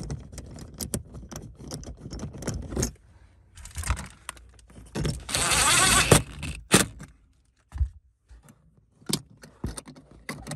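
A metal cargo hook and its bracket click and rattle against plastic trim as they are fitted into place. About four seconds in, a DeWalt 20V cordless driver gives a brief run. It then runs for about two seconds, driving the 10 mm bolt that cinches the hook down, and a few more metal clicks follow.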